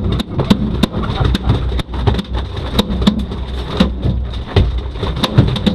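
Deck noise aboard a small boat at sea: a steady low rumble with many irregular sharp clicks and knocks, several a second.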